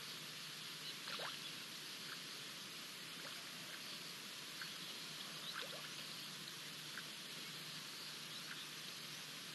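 Steady outdoor hiss with faint, short high animal calls: single chirps recurring roughly once a second, and two brief downward-sliding calls, about one second in and again near the middle.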